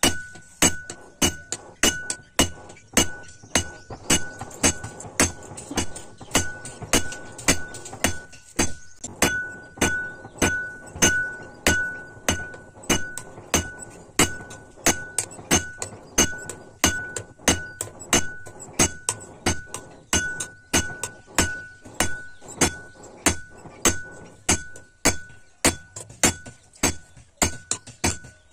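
Hand hammer forging a red-hot steel knife blade on a railway-rail anvil: a steady run of about two to three blows a second, each with a clear metallic ring.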